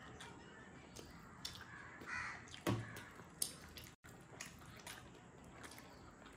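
Quiet eating sounds: chewing, with a few sharp clicks of dishware or cutlery, the loudest about two and a half seconds in. Just before that comes a brief harsh cry.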